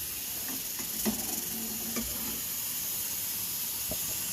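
French fries deep-frying in hot oil, a steady sizzle with a few light taps.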